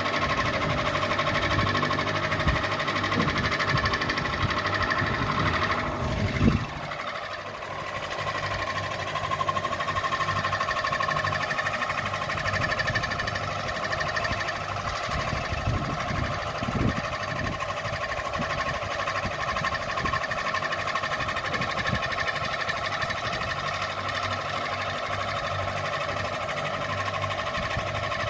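Ceiling fan running with a steady hum and a mechanical rattle. A single loud knock comes about six seconds in, after which the rattle briefly eases.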